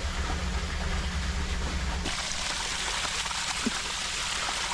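Water rushing with a steady hiss. About two seconds in, a low rumble stops and the rush becomes brighter.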